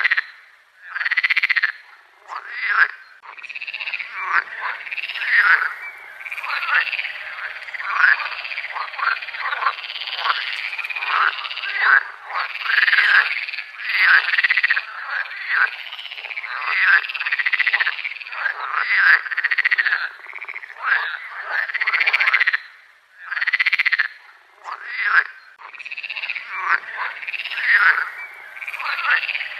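Chorus of frogs calling, many overlapping croaking calls that rise and fall in pitch, following one another almost continuously with a couple of brief lulls.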